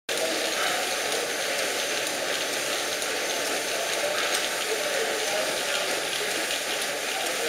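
Stationary steam engines running in a shed: a steady mechanical clatter and hiss, with faint voices in the background.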